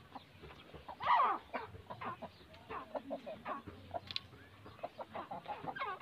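Rooster clucking: one louder call about a second in, then a run of short clucks.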